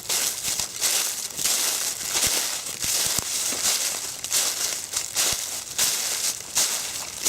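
Footsteps crunching through fallen autumn leaves on a trail, at a steady walking pace of about one and a half steps a second.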